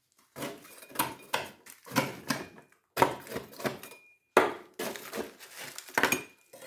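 Caked mud and grass clippings being scraped out of the inside of a metal rotary lawn mower deck: a string of rough scrapes and knocks with short pauses between them.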